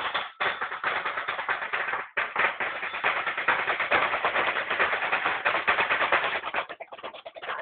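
Marching drum played in fast, continuous strokes and rolls, with a short break about two seconds in and thinning to sparser hits near the end.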